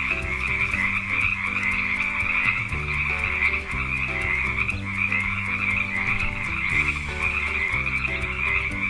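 Frogs croaking in a continuous, dense chorus that cuts off abruptly at the very end, over a soft backing tune.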